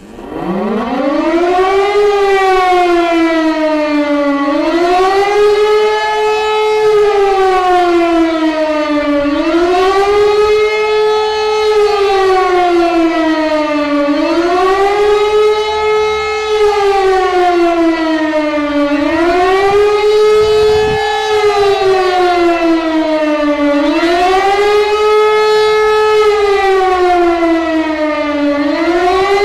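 E57 electromechanical civil-defence siren winding up from low pitch to full tone over about two seconds, then wailing up and down roughly every five seconds. This rising and falling tone is the German public 'warning to the population' signal.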